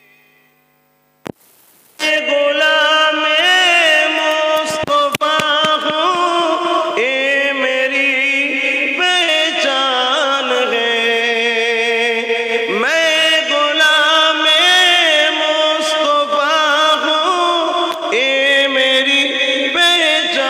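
A man chanting an Islamic devotional melody in long, wavering held notes that glide up and down, starting about two seconds in after a short click.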